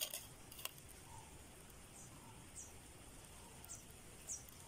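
Faint outdoor background with a small bird's short, high, falling chirps repeating every half second to a second, and a couple of sharp clicks near the start.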